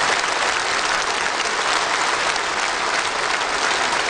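A large audience of many people applauding steadily in a big hall, a dense, even clatter of clapping hands.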